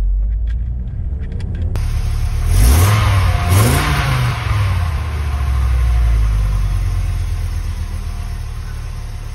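Low engine rumble inside the van's cabin on the move, then the VW T3 Caravelle's 2.6-litre Audi five-cylinder engine at the tailpipe. It is blipped twice, about a second apart, each rev rising and falling in pitch, and then settles to a steady idle.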